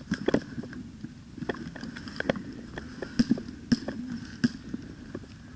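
Airsoft gunfire and BB hits: about a dozen sharp snaps and clacks at irregular intervals.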